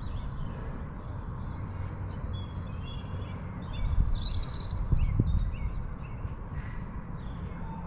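Songbirds chirping and trilling in short, scattered phrases over a steady low background rumble.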